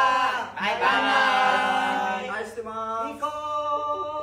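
Several young men's voices calling out together in long, drawn-out, sing-song tones, a group farewell sounding almost like a chorus.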